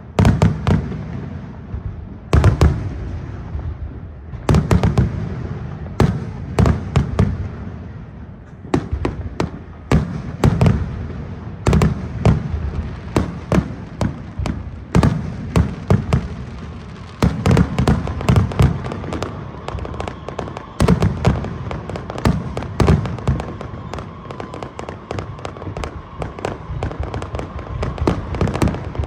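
Aerial fireworks display: a continuous barrage of shell bursts, clusters of sharp bangs every second or two with a low rumble between them.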